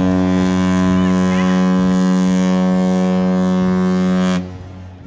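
A ship's horn sounding one loud, long, steady blast of a single deep pitch, cutting off about four and a half seconds in; it marks a ship launch.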